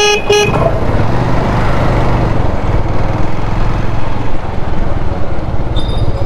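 Motorcycle engine running while riding through town traffic, with a low steady rumble. A horn toots twice in short beeps at the very start, and a thin high steady tone comes in near the end.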